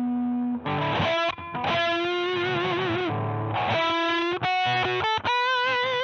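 Electric guitar played through an iSet Distortion mini pedal, with a heavy distorted tone. A held note rings on briefly, then a lead phrase of picked notes begins, several of them held with vibrato.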